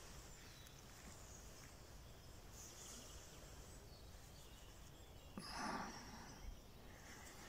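Faint outdoor background noise, with one brief, louder soft noise about five and a half seconds in.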